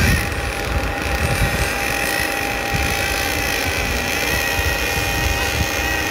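Radio-controlled touring cars running laps on an on-road track: a steady high whine that wavers in pitch as the cars speed up and slow down.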